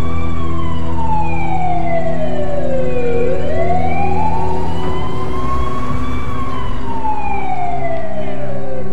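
Ambulance siren in a slow wail: its pitch falls, rises again, and falls once more, each sweep lasting about three seconds.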